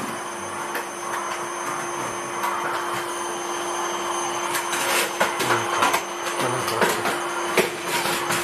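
Vacuum cleaner running with a steady hum, with a few short knocks in the second half.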